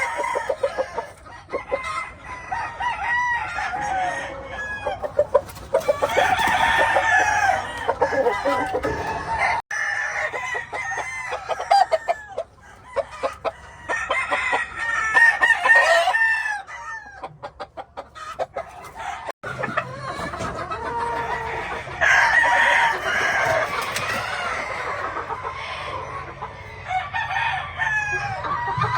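A yard full of gamefowl roosters crowing over one another, with hens and birds clucking in between. The calls overlap continuously, broken off abruptly twice.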